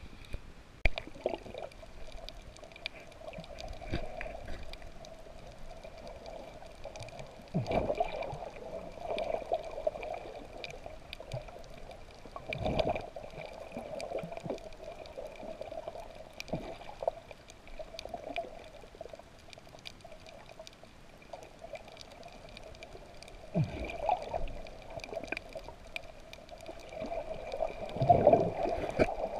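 Water sloshing and gurgling around a camera in the sea, heard muffled, over a steady hum. Several dull thumps come through, the loudest near the end.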